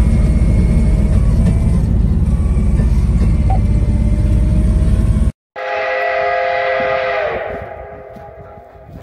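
A narrow-gauge rail speeder under way, a steady low rumble from its engine and wheels on the track. After a sudden cut, a steam locomotive whistle sounds one long chord-like blast of about two seconds, which then fades.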